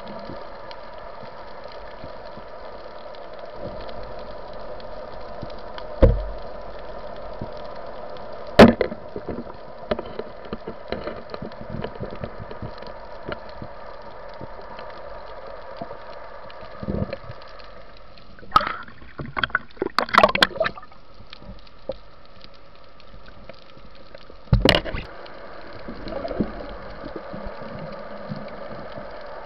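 Underwater ambience heard through a camera's waterproof housing: a steady muffled hiss, broken by a few sharp knocks and, about two-thirds of the way in, a short run of clattering clicks as the speargun and the speared fish on its shaft are handled.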